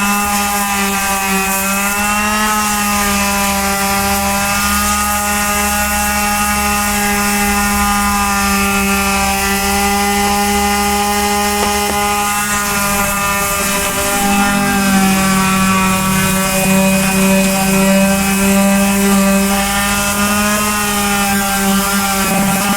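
Electric power sander running steadily against a bass boat's painted hull, a constant motor hum over the hiss of sandpaper scouring off the old paint. Its pitch drops a little about two-thirds of the way through.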